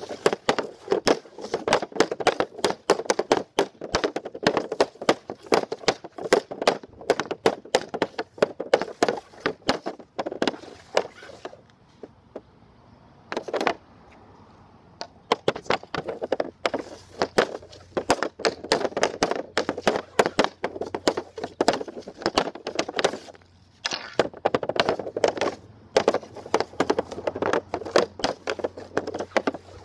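Bauer Ag5nt composite hockey stick blade rapidly clacking a puck back and forth on a plastic shooting pad while stick-handling, several sharp taps a second. It breaks off briefly about 12 and 23 seconds in.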